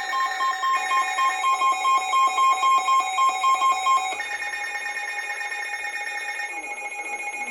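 Several NOAA weather radio receivers sound their alert tones together, signalling an incoming severe thunderstorm warning. A beep pulses about three times a second over steady tones, then gives way to steady tones alone about four seconds in.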